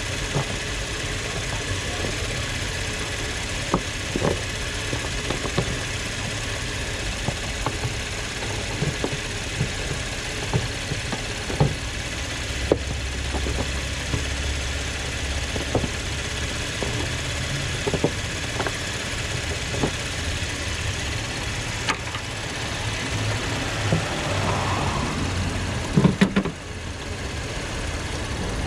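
Scattered plastic clicks and knocks as hands work a car's headlight assembly loose, with a sharper knock near the end. Underneath is a steady engine hum that swells briefly in the middle.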